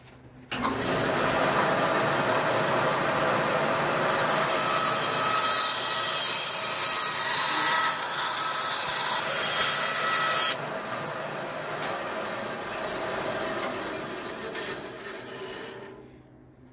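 Band saw running and cutting through the plastic housing of a satellite radio antenna. The cut turns harsher and hissier from about four seconds in to about ten seconds, then eases and fades out near the end.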